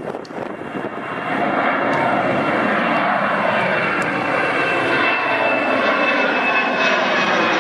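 Jet airliner's engines passing close, a loud rushing roar that swells about a second in and holds, with a high thin whine sinking slightly in pitch.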